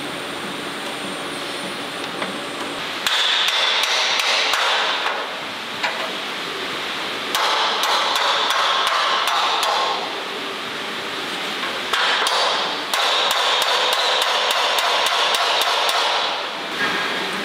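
Three loud bursts of rapid hammering on metal, each lasting two to four seconds, over a steady hiss.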